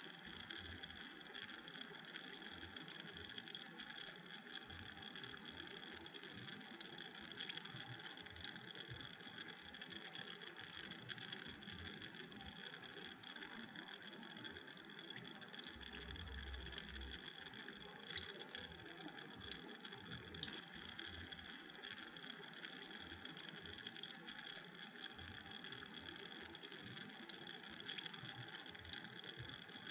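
Carbonated drink fizzing: a steady dense crackle of tiny bubbles bursting at the surface.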